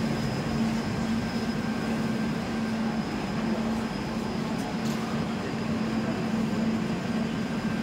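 Steady hum and rumble of a train standing at a station platform, with one low droning tone throughout.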